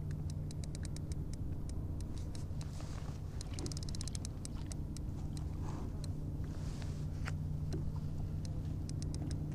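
Fishing reel clicking while a hooked striped bass is fought: irregular single ticks with short rapid runs of clicks about a third and near the end, as the drag gives line to the pulling fish.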